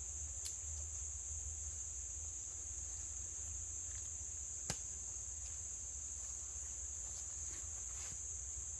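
A steady, high-pitched chorus of insects, with one sharp click a little past the middle.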